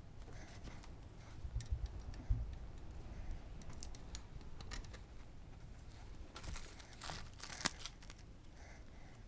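Light clicks, taps and rustling from hands working on motorcycle engine parts, with a few dull knocks about two seconds in and a louder run of scraping, rustling strokes about seven seconds in.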